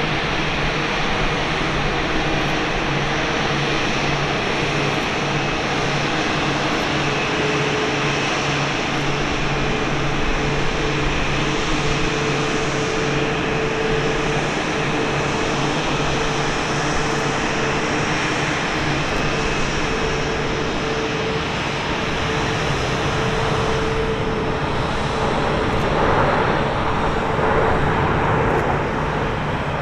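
Boeing 747-8's four GEnx-2B turbofan engines running on approach and landing: a steady jet roar with a whining tone through it. It grows louder near the end as the jumbo rolls past on the runway.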